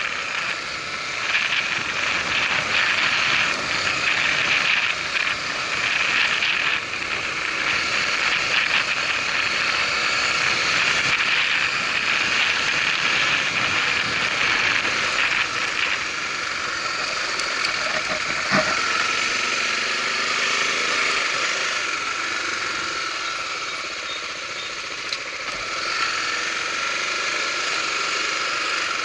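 Honda Tornado 250 single-cylinder four-stroke motorcycle engine running steadily while riding, under a constant rush of wind and road noise, with one short knock about two-thirds of the way through.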